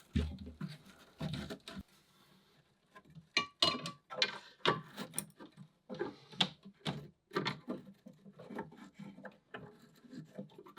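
Dry coconut fibre being handled and packed into a wooden pocket: irregular rustling and crackling, with short pauses between handfuls.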